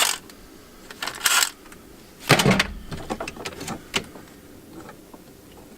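Handling noises from work on car wiring: two short bursts of rustling and scraping, the second louder, then a quick run of light clicks and taps.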